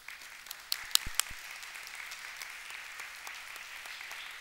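Audience applauding, with a few louder sharp knocks about a second in.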